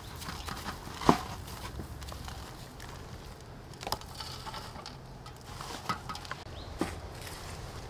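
Raw chicken pieces being pressed into breadcrumbs on a stainless steel tray: the crumbs crunch and rustle under the hands. Three sharp knocks come about 1, 4 and 7 seconds in as coated pieces are set down on the metal; the first is the loudest.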